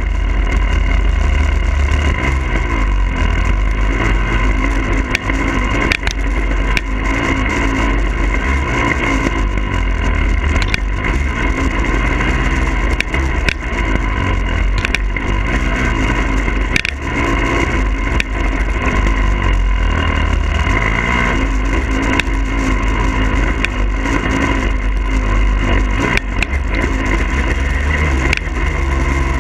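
Husqvarna TE300i fuel-injected two-stroke dirt bike engine running under riding load, its pitch rising and falling as the throttle changes. A constant low rumble and occasional sharp knocks run underneath it.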